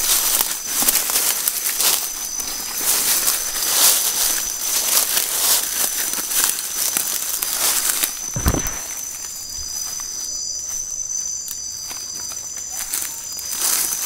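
Footsteps crunching and rustling through dry leaf litter and undergrowth, thinning out about halfway through, with a low bump just past the middle. A steady high insect trill of crickets runs underneath throughout.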